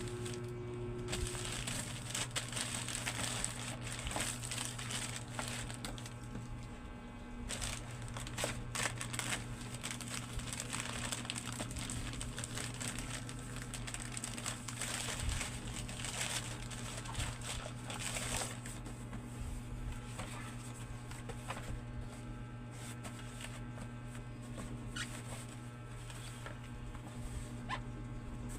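Plastic packaging crinkling, rustling and tearing in irregular bursts as a boxed solar security light is unwrapped, over a steady low hum.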